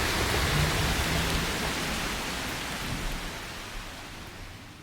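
Rain falling in a thunderstorm: an even, steady hiss that fades out gradually toward the end.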